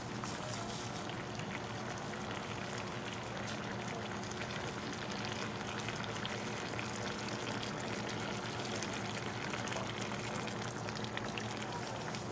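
Wok of squash and dried fish in coconut milk simmering with a steady hiss and fine crackle, coconut milk being poured in.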